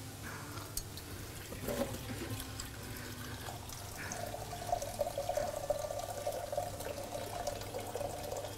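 Kitchen tap running into the sink, turned on about four seconds in and running steadily after a few light knocks and clinks.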